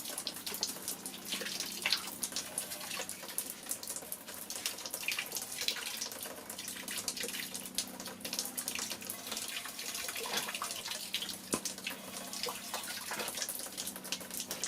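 Tap water running and splashing, with many small splashes and knocks, over a faint steady hum.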